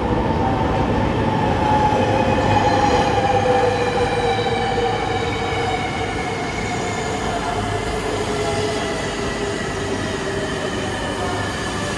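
An E3 series Shinkansen train pulls in and slows past the platform, its rumbling wheels under a whine that slowly falls in pitch as it brakes. The sound is loudest a few seconds in and eases off after the middle.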